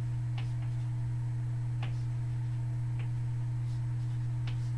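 Chalk on a blackboard: about four short taps and strokes as dots and lines are drawn, over a steady low hum that is the loudest sound.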